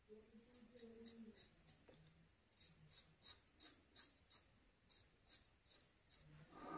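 Parker Variant adjustable safety razor scraping lathered stubble on the chin in short, quick strokes, about three a second, faint.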